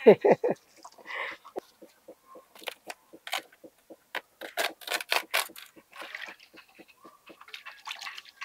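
Fresh banana leaves rustling and crackling as they are handled and wiped in a basin of water, a string of short irregular crinkles throughout. A brief burst of a woman's laughter at the start.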